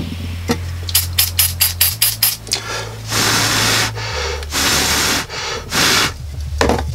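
Background electronic music with a steady bass line that changes note twice. Over it comes a quick run of about eight sharp clicks, then three loud noisy swishes.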